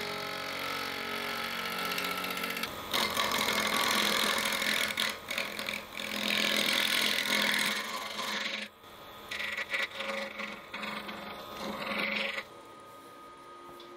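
Wood lathe spinning a winged wood-and-resin blank while a hand-held turning tool cuts it. The lathe hums steadily at first; from about three seconds in the tool cuts in loud scraping passes, with short breaks, and near the end the cutting stops and only the lathe's quieter hum remains.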